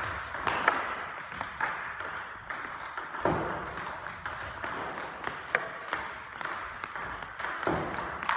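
Table tennis balls clicking off the table and rubber bats in multi-ball practice: one player feeds ball after ball and the other hits them back, making a quick, irregular run of sharp pings, several a second.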